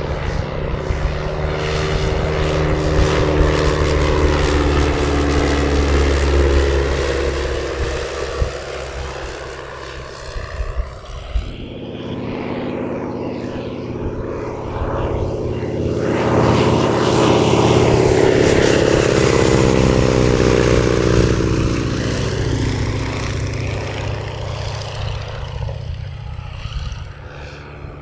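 Piston-engine propeller plane flying past: its engine and propeller sound swells, then fades. A second pass swells loud about halfway through and fades again.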